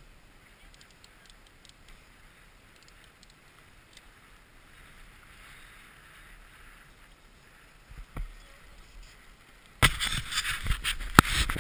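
Faint steady hiss with a few soft clicks, then a sudden loud scraping and rustling near the end: handling noise on a body-worn camera as its wearer moves in the snow.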